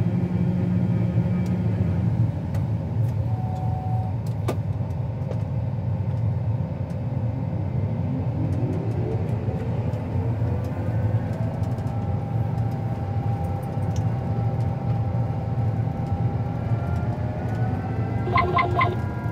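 Vehicle engine running steadily, with a whine that rises in pitch about halfway through and a quick run of about four short beeps near the end.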